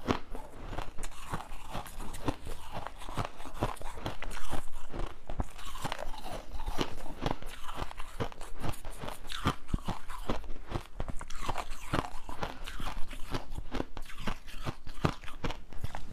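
Crushed ice being chewed close to a clip-on microphone: a steady, dense run of crisp crunches that carries on without a break.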